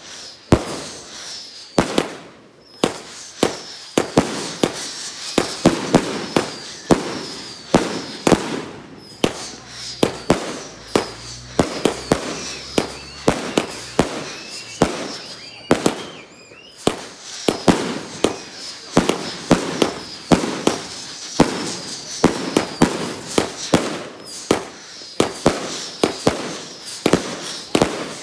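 Virus Terminator 49-shot firework cake firing shot after shot, each shell launching and bursting overhead in sharp bangs that come about one to two a second, launches and bursts overlapping.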